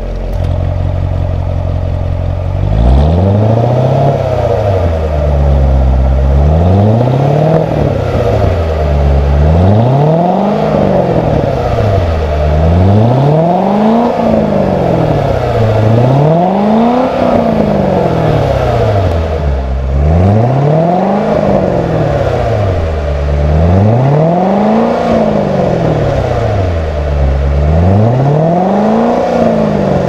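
2016 Chevrolet Corvette Stingray Z51's 6.2-litre LT1 V8 idling, then free-revved in place about eight times, each rev rising and dropping back to idle over about three seconds. Heard from behind the car at its quad exhaust tips.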